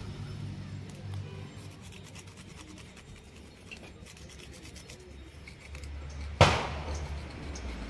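Rapid scraping and rubbing strokes, typical of scraping the charred skin of singed goat legs clean, then a single sharp knock about six and a half seconds in.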